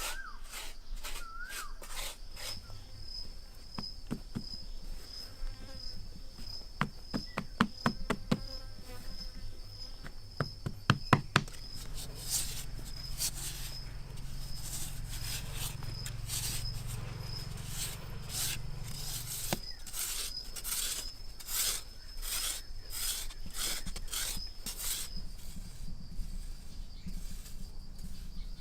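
An insect, cricket-like, chirring steadily at a high pitch, stopping near the end. Sharp clicks and knocks sound throughout, with two quick bursts of knocks roughly a quarter and a third of the way in, and a low hum runs through the middle.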